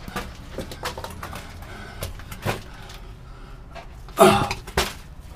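Scuffs and knocks of someone moving over rubble and mud in a tunnel entrance, with a louder scrape and thud about four seconds in.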